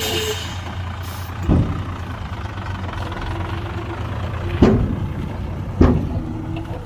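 Heavy diesel construction machinery running with a steady low rumble, broken by three sharp heavy knocks, the last two close together and the loudest.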